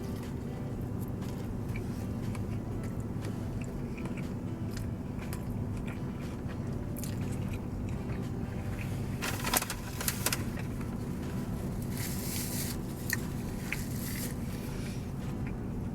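A person biting into and chewing a chicken fajita flatbread sandwich, with soft wet chewing and a few louder crunching, rustling bursts about nine to ten seconds in and again around twelve seconds, over a steady low hum.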